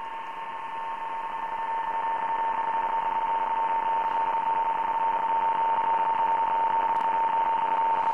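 Receiver audio from an LD-1TR software-defined transceiver tuned to PSK-31: band hiss with a strong, steady mid-pitched tone from a PSK-31 signal, growing gradually louder. A fainter, higher second signal tone fades out a few seconds in.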